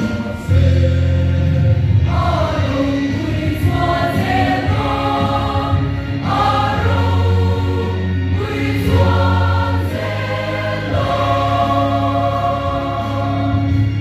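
Large mixed church choir of women and men singing a hymn together, over sustained deep bass notes.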